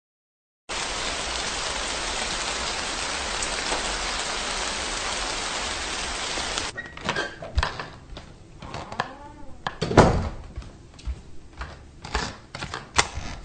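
A steady hiss, even like rain noise, starts just after the opening and cuts off abruptly about six seconds in. It is followed by scattered clicks and knocks of footsteps and movement in a hallway, with one loud thump about ten seconds in.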